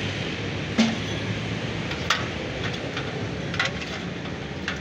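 Four sharp metal knocks, about one every second and a half, as a car seat frame part is handled and knocked about, over a steady low engine-like rumble.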